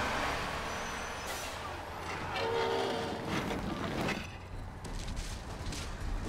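A bus's engine running with a steady low rumble and tyres rolling, a short high steady tone about two and a half seconds in, and loud rushing noise bursts near the start and about four seconds in.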